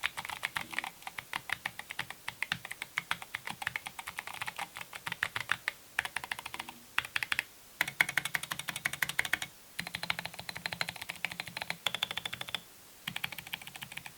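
Fast typing on a mechanical keyboard with plastic keycaps: dense runs of keystroke clacks, broken by a few short pauses.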